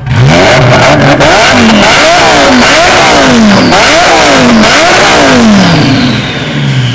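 A loud, tuned high-performance car engine revved over and over, about once a second, each rev climbing quickly and then falling back. A high whine falls in pitch near the end.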